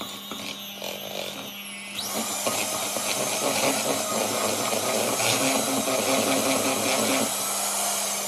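Electric hand mixer running, its beaters churning cake batter in a plastic bowl: a steady motor whine with the rattle and slosh of the beaters, getting louder about two seconds in.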